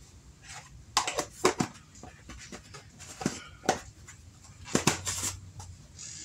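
Metal tablespoon scooping chicken base from its jar and clinking against the jar and the plastic mixing bowl: a string of sharp taps and short scrapes, about eight in all, the last few close together.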